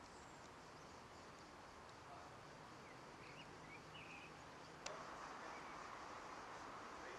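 Faint outdoor ambience: a steady hiss with a few short, distant bird chirps. A single sharp click comes about five seconds in, after which the hiss is slightly louder.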